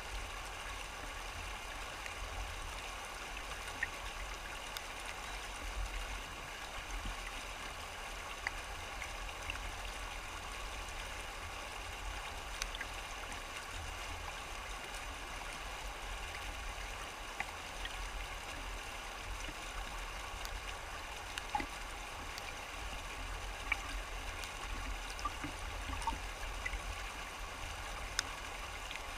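Shallow river rapids rushing and gurgling over rocks: a steady, unbroken water noise with scattered small ticks of splashing.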